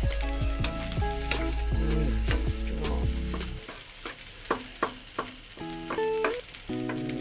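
Fried rice sizzling in a granite-coated nonstick wok while a wooden spatula stirs and scrapes through it in quick repeated strokes. Background music plays underneath.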